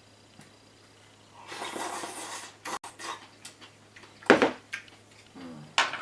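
Ceramic tableware and chopsticks clinking during a meal at a wooden desk: a rustle about a second and a half in, a few light clicks, then two sharp knocks of a bowl against the desk, the loudest a little past four seconds and the other near the end.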